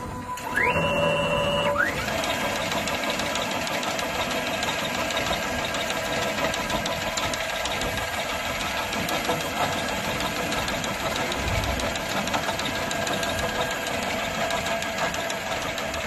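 Wire harness tape wrapping machine starting up with a short rising whine, then running with a steady mechanical whirr and fine rapid ticking as its rotating head winds tape around the cable being drawn through.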